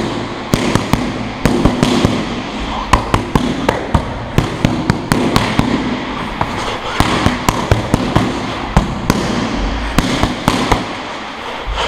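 Boxing gloves smacking into focus mitts in rapid combinations: sharp slaps in quick flurries of several punches, broken by short pauses.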